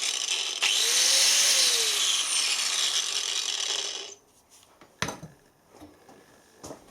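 DeWalt angle grinder switched on for a test run after a cable rewire, its gearbox still dry of grease. The motor whine jumps up suddenly, then falls away as the grinder is switched off and runs down, stopping about four seconds in. A few light knocks follow.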